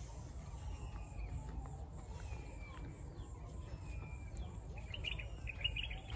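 Faint bird chirps over a steady low rumble of outdoor background noise, with a short cluster of chirps near the end.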